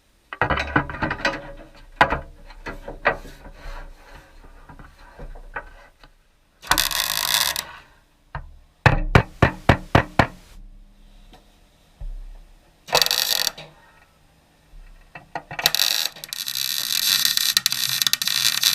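Sheet-metal work on a VW Beetle's lower rear quarter: scattered tool clicks and knocks, a quick run of sharp hammer blows about halfway through, and short crackling bursts of MIG welding tacks, then a longer welding run near the end.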